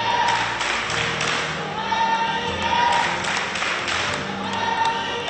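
Background music with sung voices.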